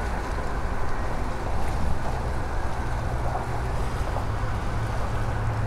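Wind buffeting the microphone over a steady low rumble, with a low hum growing stronger in the second half.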